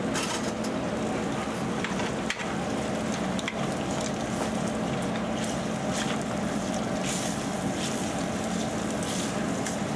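Bratwurst sausage sizzling in hot grease in an aluminium skillet, with a few clicks and scrapes of a metal spoon stirring it against the pan, over a steady low hum.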